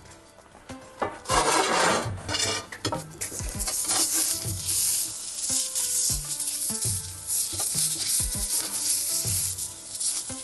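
Oil and marinade sizzling on a hot cast-iron grill plate in a wood-fired pizza oven as an oiled onion half is rubbed over it. The sizzling starts about a second in and is steady after that, with scattered light knocks and scrapes.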